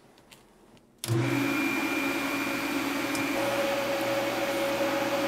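PrimeWeld TIG325X welding machine switched on and running: a loud, steady hiss with a low hum that starts suddenly about a second in, and the hum tones shift partway through.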